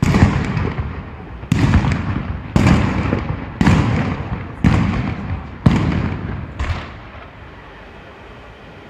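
Firework shells bursting in a run of seven sharp bangs, about one a second, each followed by a rumbling echo. The bangs stop about seven seconds in.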